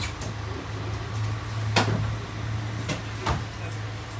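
Cabin noise inside a route bus: a steady low engine drone with a few sharp rattling knocks from the interior fittings, the loudest about halfway through.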